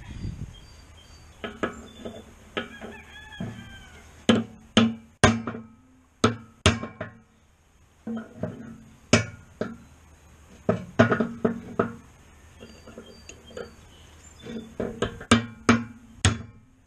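Hammer blows on steel, sharp and irregular, coming in quick clusters with short pauses, knocking a bearing out of a disk harrow gang.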